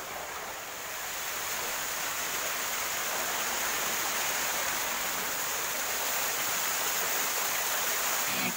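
Small waterfall pouring down into a rock gorge: steady rushing water, a little louder after about the first second.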